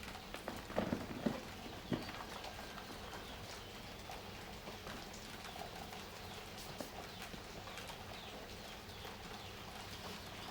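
Dry sand-and-cement chunks crumbling, with a few loud crunches in the first two seconds and then fainter crumbling ticks. Under it runs a steady hiss of rain.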